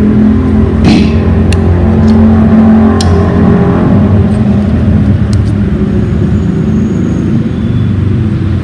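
A steady low mechanical hum with a few light clicks.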